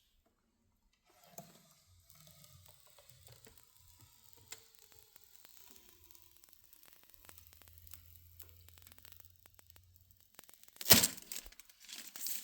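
Protective plastic film being peeled off a PC case panel: soft crackling and ticking as it lifts, then a loud tearing rip near the end.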